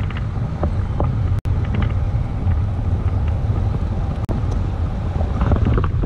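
Wind buffeting the microphone of a pole-mounted camera in paragliding flight: a steady, loud low rumble that cuts out for an instant twice.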